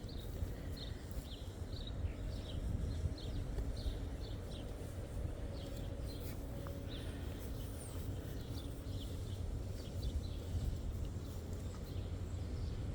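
Small birds chirping with many short, high calls over a steady low outdoor rumble.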